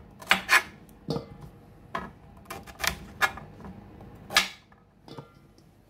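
Kitchen knife chopping the ends off green bananas on a cutting board: about eight irregular sharp knocks as the blade goes through and strikes the board, then fainter after about four and a half seconds.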